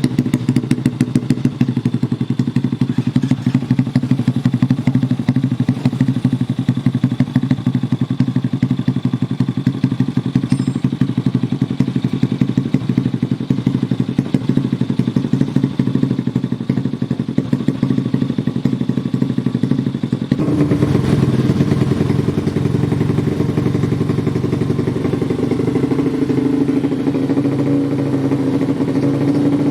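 Modified 130cc underbone motorcycle engine running steadily with a rapid, even beat. About twenty seconds in it gets louder and its note shifts, then holds steady at the new pitch.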